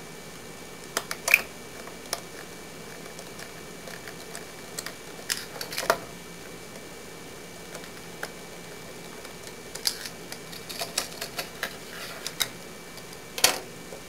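Scattered light clicks and taps of a plastic solar garden light housing being handled and unscrewed, in small irregular clusters, the loudest tap near the end.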